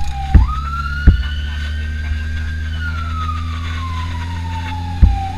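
An emergency siren wailing, heard from inside a car's cabin: one slow cycle that rises in pitch over about two seconds and falls back over the next three, over the car's engine hum. Three sharp knocks cut in, two within the first second and one near the end.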